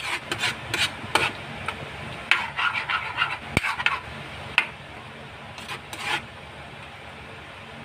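Metal ladle scraping and clinking against the pan while stirring thick chicken caldereta: a busy run of scrapes over the first four seconds or so, then only a few, over a low steady hum.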